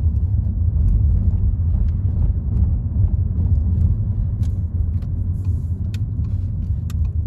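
Cabin noise of a Volkswagen Passat with a TSI turbo petrol engine on the move: a steady low rumble of engine and road, with a few faint ticks in the second half.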